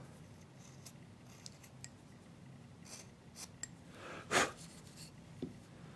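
Carving knife slicing small chips from a hand-held wooden figure: a few faint short cuts, then one louder slicing cut a little over four seconds in.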